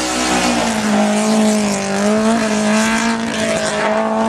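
1963 Elva Mk VII sports-racer's engine running hard at high revs, its pitch holding fairly steady with small rises and dips as the car works through an autocross cone course.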